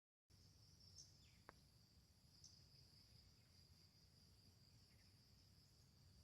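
Faint, steady high-pitched insect chirring, with a few short chirps over a low background hum.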